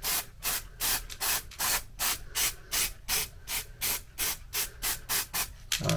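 Aerosol spray can spraying a foam ring in short, quick bursts, about three or four a second, an even rhythmic hiss.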